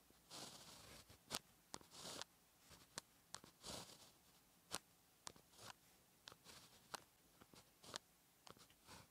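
Faint pen-on-paper writing: a retractable pen's tip scratching out the strokes of a Chinese character, with short scratchy strokes and a few longer ones mixed with sharp little ticks as the tip lands and lifts, at an uneven pace.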